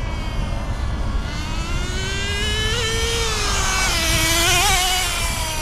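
Traxxas Rustler 2.5's small nitro engine revving as the RC truck drives, its whine rising and falling in pitch several times with throttle. It is running cleanly at speed on a freshly changed glow plug, the cure for its cutting out at top speed.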